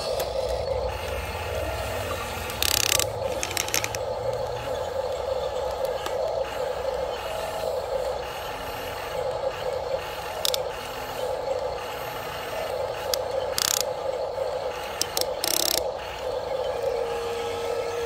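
Huina RC excavator's small electric gear motors whining steadily as the boom, arm and bucket move, with a few short clatters now and then.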